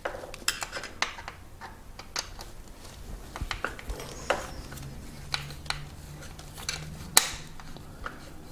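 Irregular small metallic clicks and clinks of a hex key working a motor mounting bolt on a Yamaha PW-X e-bike mid-drive motor, with one louder click about seven seconds in.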